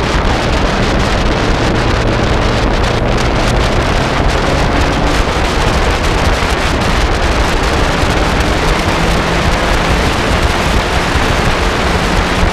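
Lotus sports car's engine running at speed on a racing lap, loud and steady under heavy wind rushing over the microphone; the engine note starts to rise near the end as the car accelerates.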